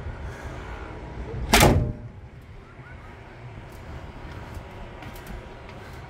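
A hinged deck storage-box lid on gas struts shut with a single loud thump about a second and a half in, over a steady low background rumble.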